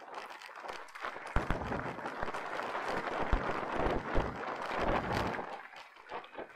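Mountain bike rolling over rough trail: a dense crackle of tyres on dirt and gravel, with rattling knocks and low thumps that get louder about a second and a half in.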